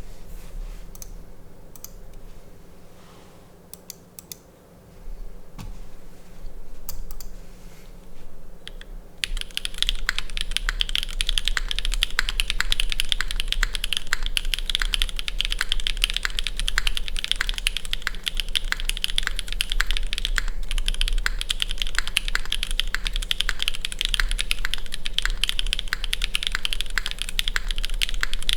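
Typing on a CW60 gasket-mount mechanical keyboard with stock Gateron Raw switches on a polycarbonate plate and GMK keycaps. A few scattered keystrokes first, then about nine seconds in fast, continuous typing.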